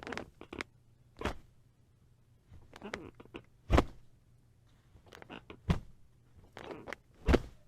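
Squeaky bed mattress creaking in four bouts about two seconds apart, each a run of short creaks that ends in one loud, sharp creak.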